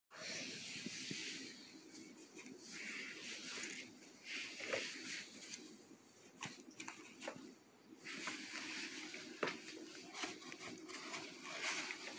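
A cat playing on a blue sheet unrolled from a roll, rustling and crinkling it, with scrapes and light ticks of claws. The noise comes in irregular bursts, with a quieter spell about two-thirds of the way through.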